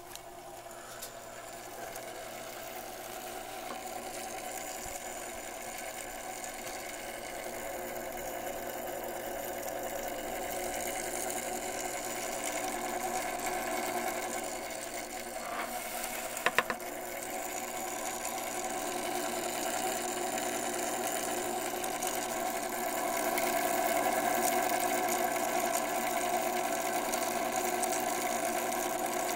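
Electric motor and gear train of a vintage New Haven Westinghouse self-starting electric chime clock, running with a steady mechanical hum that grows gradually louder, with two sharp clicks about halfway through.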